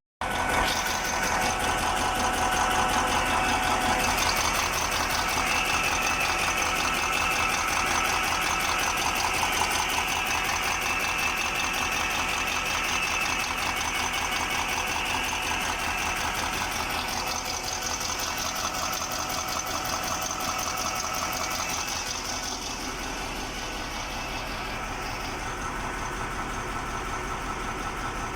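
KamAZ truck diesel engine idling with a rapid, even knock: the knock of a failed fuel injector.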